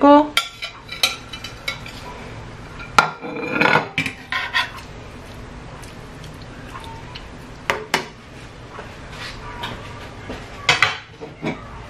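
Slotted turner knocking, clinking and scraping against a non-stick frying pan and a plate as hake fillets are moved into a tomato and potato sauce: scattered knocks, with a short scrape about three and a half seconds in and more clicks near the end.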